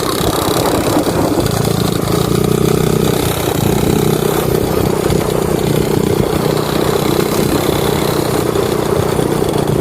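An engine running steadily at idle, starting and stopping abruptly.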